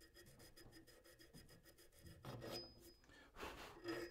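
Two faint strokes of a small hand file across the edge of a steel plate clamped in a vise, starting about halfway through after a near-silent first half.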